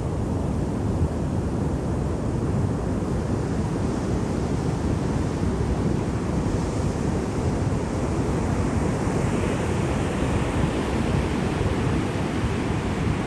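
Sea surf washing in continuously, a dense low rumble of waves under a softer hiss that swells about nine seconds in as a wave breaks and runs up.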